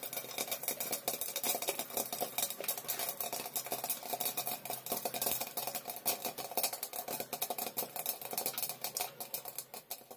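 Popcorn popping in hot oil in a kadai covered with a glass lid: a dense, rapid run of pops.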